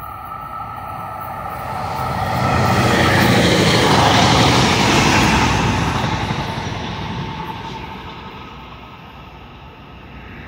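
Trinity Railway Express commuter train passing close by: the rumble and rail noise swell to a peak about three to five seconds in, then fade as it moves away.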